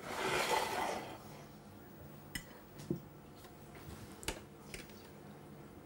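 Cutlery working on a plate as food is laid out: a scraping rustle lasting about a second, then three light clicks of a fork against the plate.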